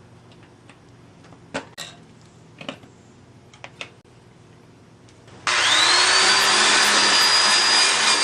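A few light clicks and knocks, then about five seconds in a power tool with a wire brush starts suddenly and whines up to speed, scouring rust off a steel bicycle rim with a loud, steady scrubbing noise.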